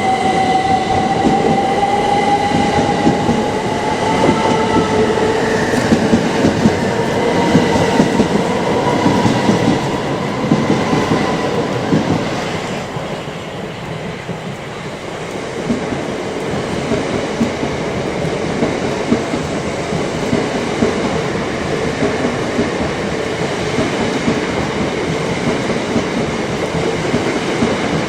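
Electric multiple-unit train moving through the station, its traction motors giving a whine that rises in pitch over the first dozen seconds, with wheels clacking over the rail joints and a steady rumble after the whine fades.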